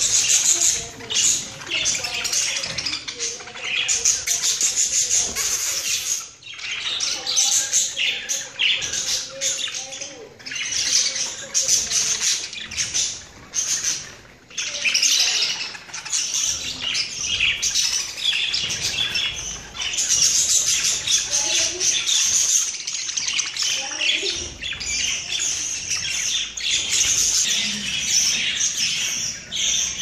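A small parrot, a yellow budgie, chattering and chirping on and on in quick, high-pitched warbles, with a few short pauses.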